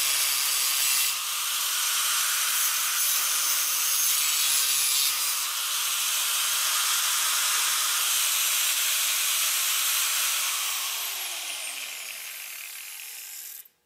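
Angle grinder cutting into the metal tube of a shock absorber, running steadily under load. About ten seconds in it is switched off and winds down, its pitch falling.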